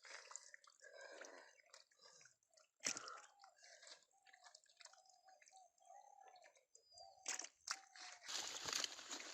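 Faint drips, squelches and small clicks of muddy water being handled, with a run of short faint chirps through the middle and a louder splashing stretch near the end.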